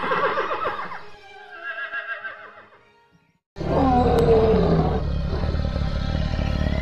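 A horse whinnying, fading out by about three seconds in. After a short silence a lion roars suddenly, a deep rumble with a falling moan that carries on to the end.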